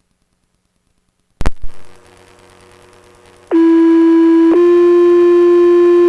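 Fire department two-tone sequential page received on a Baofeng UV-5R scanner. The radio channel opens with a sharp click and crackle, then low hiss; about two seconds later comes a steady tone lasting about a second, then a slightly higher steady tone that holds on. These are the alert tones that set off the firefighters' pagers ahead of a voice dispatch.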